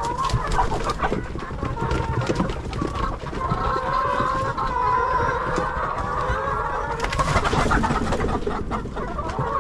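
A flock of laying hens clucking and calling, many birds overlapping without a break.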